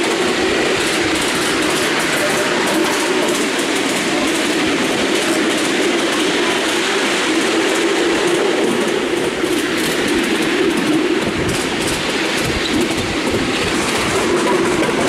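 Miniature railway train, hauled by a miniature BR class 37 locomotive, running along the track: a steady, loud noise of wheels on rail from the riding cars.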